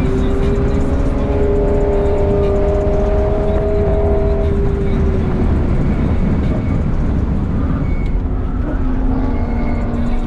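BMW E36 320i's 2.0-litre straight-six heard from inside the cabin under power, its pitch climbing slowly through a gear, easing off about halfway through, then climbing again near the end, over heavy road rumble.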